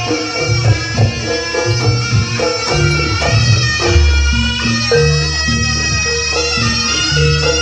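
Live jaranan ensemble music: a reedy shawm (slompret) holding a bright melody over drum strokes and low sustained notes.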